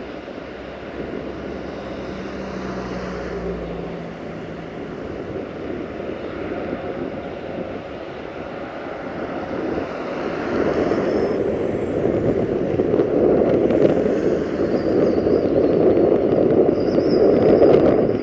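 Electroputere 060-DA diesel-electric locomotive running under power as it hauls a freight train, a steady rumble that grows louder from about ten seconds in as it draws nearer.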